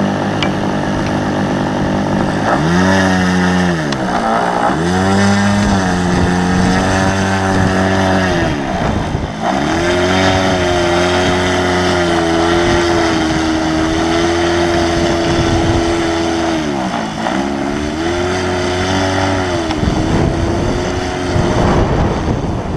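Glow engine of a Great Planes Revolver .60-size RC aerobatic model airplane in flight. Its pitch drops and climbs back several times as the plane manoeuvres and the throttle is worked. Near the end the engine tone fades into wind noise on the microphone.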